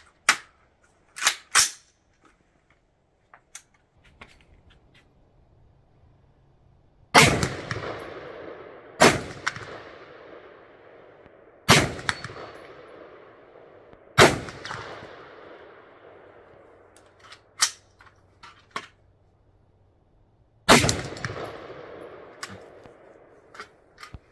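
Kodiak Defence WK-180 semi-automatic rifle firing five 5.56 NATO full-metal-jacket rounds, four a couple of seconds apart and the fifth after a longer pause. Each shot is followed by a long echo. A few short metallic clicks come about a second in.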